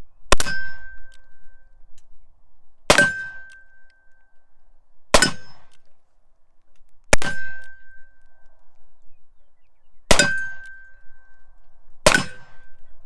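A .44 Colt 1860 Army reproduction cap-and-ball revolver fires six black-powder shots, two to three seconds apart, each followed by a brief metallic ring. It empties the full cylinder with no cap jam, running on SliXshot replacement nipples.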